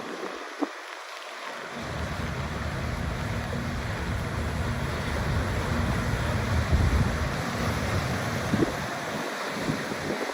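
Steady hiss of falling rain, with wind buffeting the microphone in a low rumble that drops away briefly near the start and again near the end.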